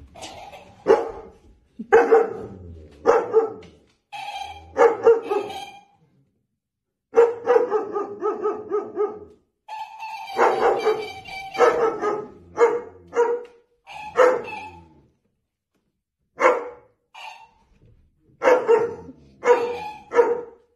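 Large dogs barking repeatedly in short volleys, with a couple of brief pauses between them.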